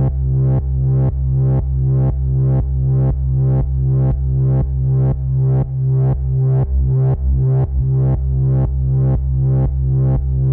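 Moog Subsequent 37 analog synthesizer sounding a deep repeating note, about two pulses a second, each opening bright and quickly fading. A little past halfway the low pitch wavers and shifts as the second oscillator is retuned with hard sync on.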